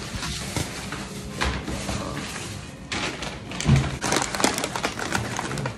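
Handling noises from a takeout food order being carried and packed: knocks, taps and crackling, with a heavy thump a little under four seconds in, over faint background music.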